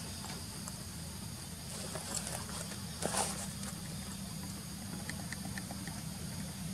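A steady low engine hum, like a vehicle idling, with a brief rustle about three seconds in.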